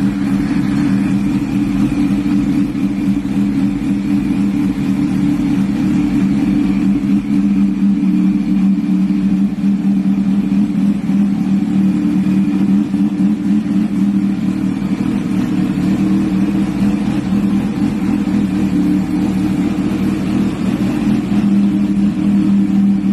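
Kawasaki Ninja H2R's supercharged 998 cc inline-four running on a chassis dynamometer, held at a steady engine speed.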